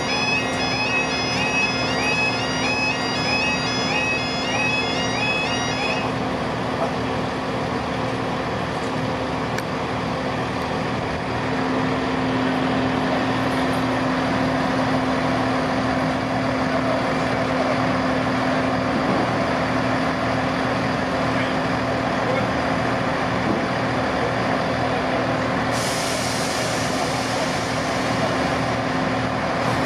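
A level crossing's two-tone warning alarm yodels for about the first six seconds, then stops. After that a Class 158 diesel multiple unit idles with a steady drone and hum, which grows stronger about 11 seconds in. A steady hiss of air joins it near the end.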